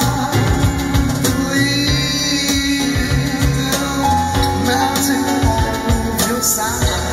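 Live band music through PA speakers: an amplified guitar with a rhythmic low accompaniment and a sung melody.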